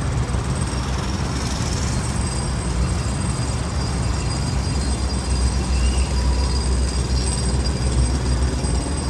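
Heavy road-construction machinery running: a steady low engine rumble with a faint high whine above it.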